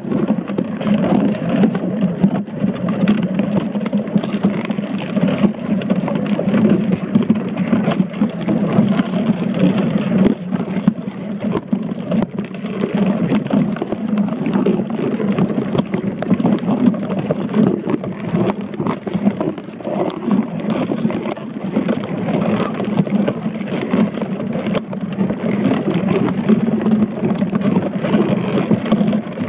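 Steady, muffled underwater rumble and hiss picked up by a submerged camera, with many faint scattered ticks.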